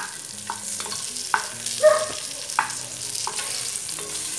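Bacon cubes sizzling as they fry in the fat of a metal pressure cooker pot, with a spoon knocking and scraping against the pot in irregular clicks as they are stirred.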